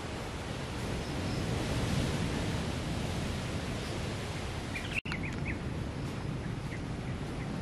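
Steady rushing ambience of distant surf carried through coastal forest, with a few short bird chirps about five seconds in, where the sound briefly drops out for an instant.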